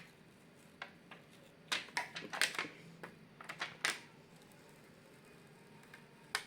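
Scattered small clicks and light knocks of an opened laptop and its plastic parts being handled: a cluster of them about two seconds in, a few more near four seconds, then quiet.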